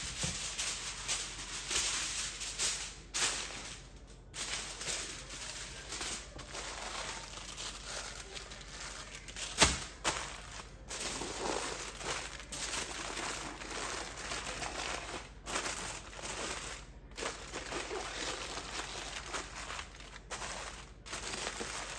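Aluminium foil crinkling and crumpling as a second layer is wrapped tightly around a rack of ribs, with one sharp knock about ten seconds in.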